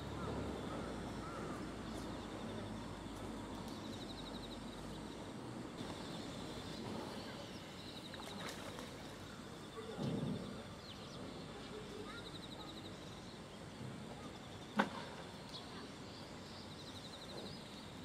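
Steady outdoor background noise with a faint high pulsed chirp repeating every couple of seconds, a low thud about ten seconds in and a single sharp click near the end.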